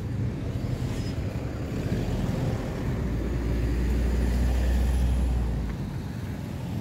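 A motor vehicle's engine passing close by on a city street: a low rumble that swells about three seconds in and drops off near the end, over steady traffic noise.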